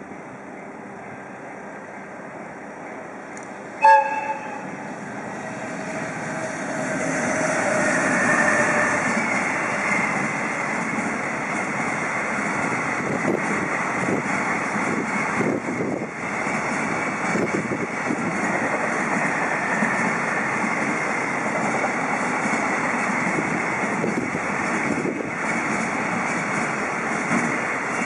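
One short blast of the AW-2 air whistle on a JR Freight EF210 electric locomotive, about four seconds in. Then the freight train rolls past: a steady rumble of steel wheels on the rails with clacks over the rail joints, building up over a few seconds and holding steady.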